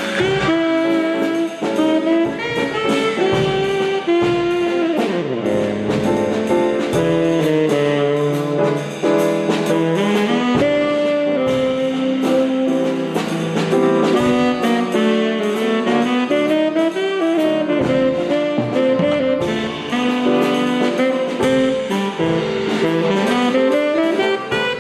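Instrumental jazz with a saxophone lead over a steady drum beat.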